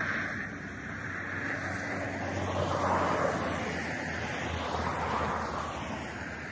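A road vehicle passing on a highway: a rushing tyre-and-engine noise that swells to its loudest about three seconds in, then fades, over a steady wind-like hiss.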